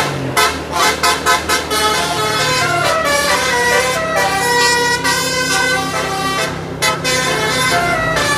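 Indonesian bus 'telolet' multi-tone air horn playing a tune: a run of short quick toots for about two seconds, then longer held notes stepping up and down in pitch, with a brief break near the end.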